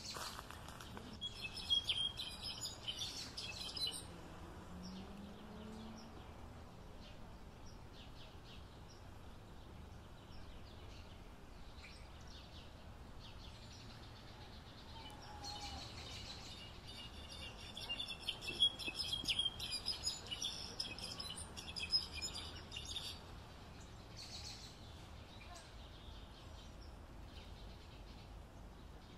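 A songbird singing in two bouts of rapid, high twittering: one about a second in lasting some three seconds, and a longer one from about the middle lasting some seven seconds, over a steady low hiss of background noise.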